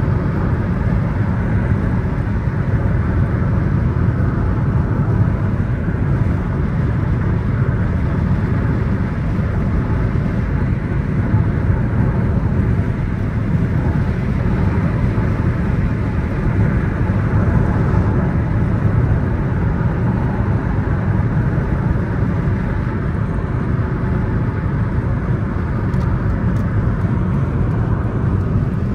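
A car driving at a steady speed: continuous road and engine noise, heaviest in the low range and unchanging throughout.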